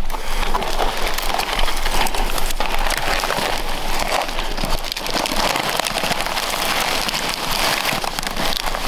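Dry twigs, branches and needle litter crackling and scraping, with clothing rustling, as a person crawls on hands and knees through a tight gap under low, dead branches: a dense, continuous crackle.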